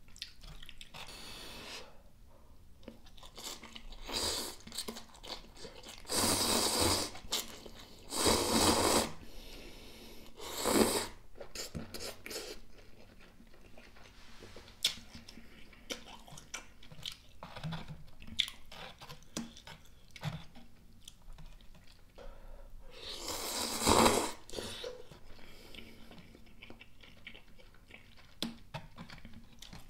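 Close-miked eating of yukgaejang cup noodles: several loud slurps of about a second each, with wet chewing and mouth sounds in between.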